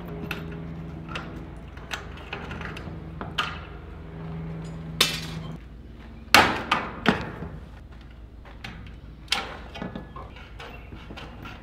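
Hand tin snips cutting and clipping the end of a steel standing seam roof panel: a series of sharp metal clicks and crunches, loudest in a cluster about six to seven seconds in. A steady low hum runs underneath and stops about halfway through.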